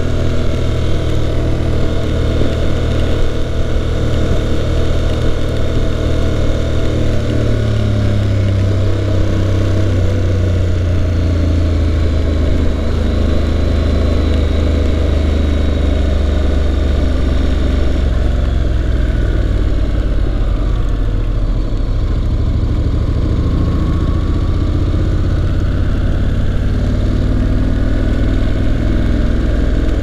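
Honda NC750X's parallel-twin engine running steadily while riding. Its pitch rises a little about ten seconds in, drops back around twenty seconds, and rises again near the end.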